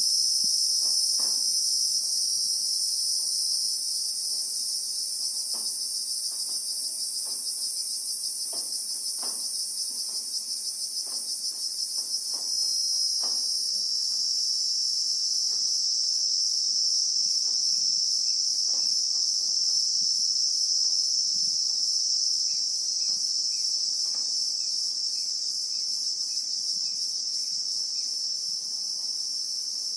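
Cicadas, the insects known in South Africa as Christmas beetles, shrilling in a continuous high-pitched buzz. About twelve seconds in the tone shifts and grows a little louder as the chorus changes.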